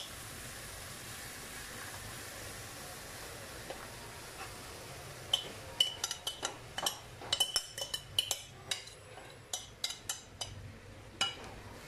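Coconut milk pouring into a hot frying pan with a faint steady sizzle; from about halfway, a spoon scraping the last of the milk out of a plastic tub, with a quick run of irregular clicks and clinks against the tub and pan.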